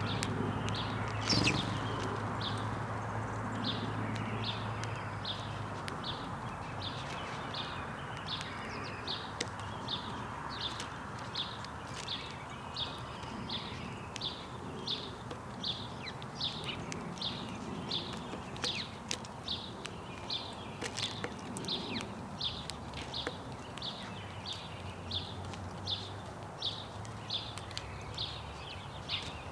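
House sparrow chirping steadily, one short monotone cheep repeated about three times every two seconds, over a steady outdoor background hiss.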